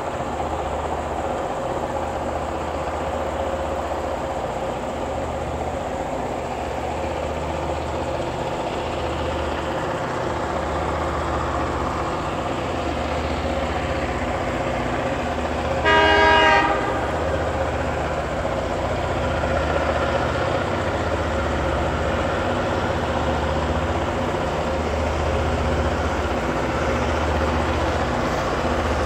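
Two DBZ-class diesel locomotives working hard under load on a loaded coal train, their engines running steadily with a deep, pulsing throb. There is one short horn blast about halfway through.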